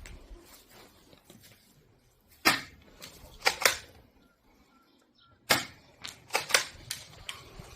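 Tokyo Marui M3 Benelli air-cocking airsoft shotgun being pumped and fired: sharp clacks and pops, one about two and a half seconds in, a pair about a second later, then a quicker cluster of several near the end.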